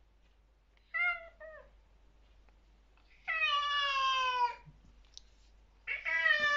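Cat yowling a warning at another cat in a standoff: a short call about a second in, then two long drawn-out calls that sag in pitch at their ends.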